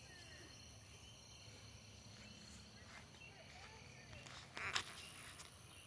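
Faint outdoor ambience with a steady high insect hum and a few faint distant calls. A brief rustling noise comes about four and a half seconds in.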